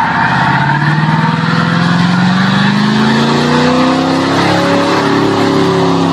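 Muscle car engine revving hard, its pitch climbing steadily, over the rushing noise of tyres spinning in a burnout.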